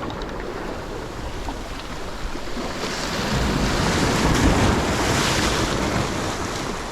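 Sea surf breaking and washing up the beach, swelling louder in the middle and easing off near the end, with wind buffeting the microphone.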